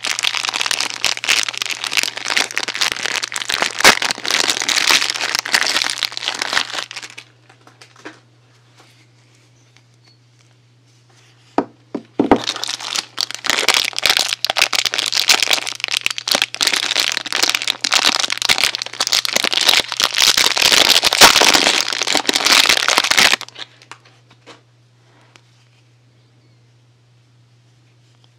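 Crinkly wrapping crumpled and handled in two long spells, one of about seven seconds and then, after a quiet gap broken by a couple of clicks, one of about eleven seconds.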